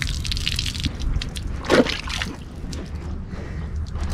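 Water pouring out of an upturned rubber boot and splattering over a hand and onto asphalt, with a louder slosh about two seconds in and scattered drips after it.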